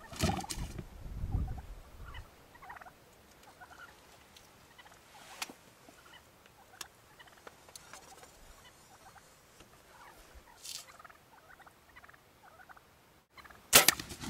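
Wild turkey toms gobbling, loudest in the first two seconds, then faint short turkey calls through a quiet stretch. Near the end a sudden loud crack as the archer's arrow strikes a tom, and the hit bird starts flopping.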